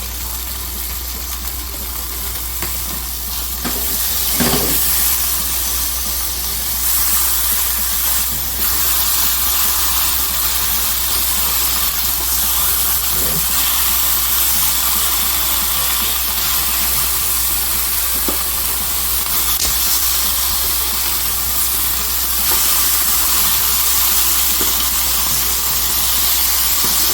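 Seasoned chicken quarters sizzling as they grill in a hot pan: a steady frying hiss, with a low steady hum underneath.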